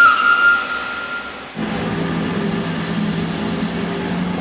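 A held tone fades out, then about a second and a half in the sound cuts suddenly to a train running, a steady rumble with a low hum.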